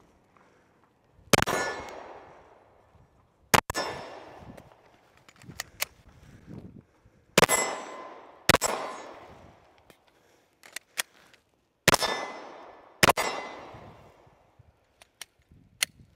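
AR-15 rifle firing six shots, the later ones in pairs about a second apart, each shot followed by a long echo that dies away over a second or two. Quieter clicks and knocks come between the shots.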